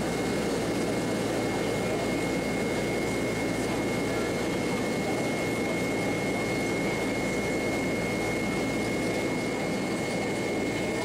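Steady roar of a Boeing 767-300ER's twin turbofan engines in climb, heard inside the passenger cabin, with a thin steady whine above the deep rush of engine and airflow noise.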